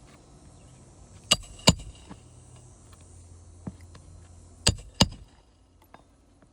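Hammer driving roofing nails into asphalt shingles: two pairs of sharp blows, each pair about a third of a second apart, with the second pair about three seconds after the first.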